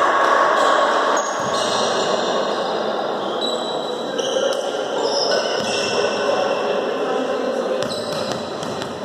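Volleyball play in a large echoing gymnasium: the ball is struck a few times with sharp smacks, over a steady hall noise.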